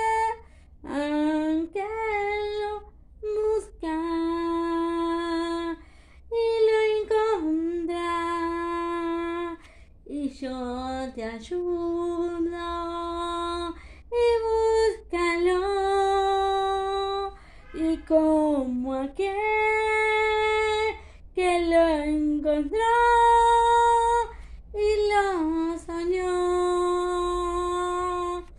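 A woman singing unaccompanied, holding long steady notes in phrases of a few seconds, with short breaks between them.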